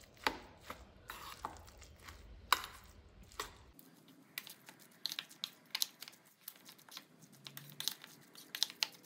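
A metal spoon stirring a thick, wet prawn omelette batter in a stainless steel bowl: irregular soft clicks and scrapes as the spoon knocks and drags against the bowl.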